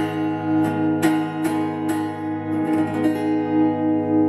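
Acoustic guitar played live: a loud strummed chord at the start, then lighter strokes about twice a second, thinning to a chord left ringing near the end.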